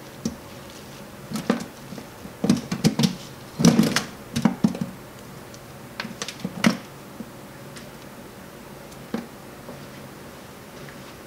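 A hand scooping crushed apple pulp off a hydraulic press plate: a string of irregular knocks and clicks, heaviest a few seconds in, then only a few isolated ones.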